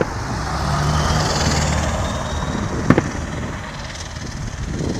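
Firework bangs, one right at the start and another about three seconds in. In between, a vehicle passes by: a low engine hum and road noise swell and then fade.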